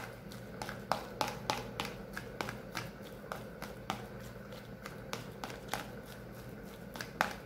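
Metal fork clicking and scraping against a plastic container while mashing and mixing soft potato dough, in quick irregular taps with one louder knock near the end.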